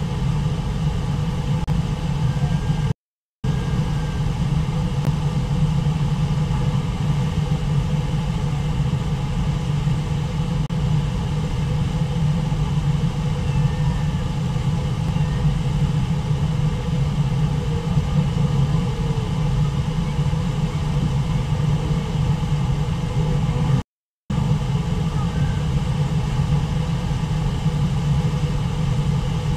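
Brooks Falls rushing: a steady low rumble of water pouring over the falls and through the white-water below. The sound cuts out completely twice for a moment.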